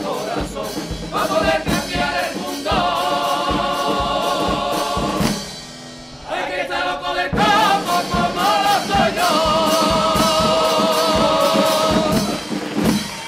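A carnival comparsa, a men's choir, sings in harmony to strummed Spanish guitars. Twice they hold long notes with vibrato, the closing phrases of the piece, which ends with a final stroke near the end.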